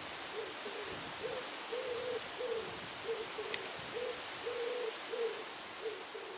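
Pigeon cooing: a repeating phrase of short low coos, each phrase carrying one longer drawn-out note.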